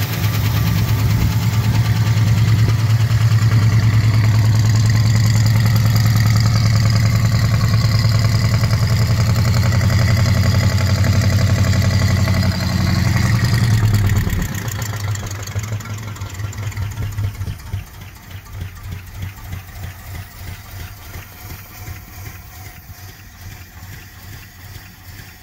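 1967 Dodge Charger's 383 big-block V8 running loud and steady on its first start after sitting for years, then dying about fourteen seconds in. Only faint, uneven low sound is left after that.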